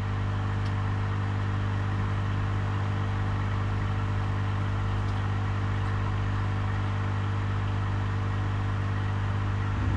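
Aquarium pump humming steadily, a low mains-type hum with a faint hiss of moving water over it.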